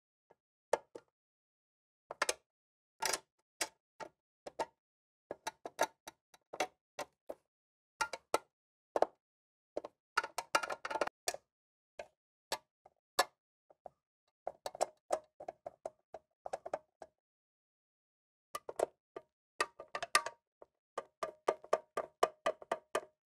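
A Phillips screwdriver driving screws into the sheet-metal motor frame of a Furrion RV air conditioner: scattered sharp metal clicks and taps, with several runs of rapid ticking as the screws are turned in.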